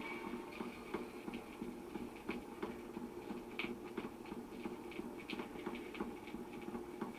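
Electric record player running on after the music has ended: faint crackle and small irregular clicks from the stylus in the record's groove, about two or three a second, over a steady low hum from the motor and amplifier.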